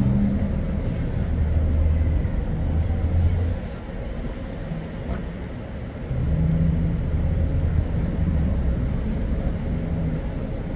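Street traffic: motor vehicle engines running with a low rumble, louder for the first few seconds and again from about six seconds in until near the end.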